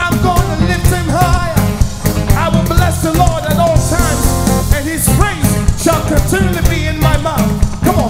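Live gospel worship music: a band with drums and bass playing a steady beat while a male lead singer and backing vocalists sing.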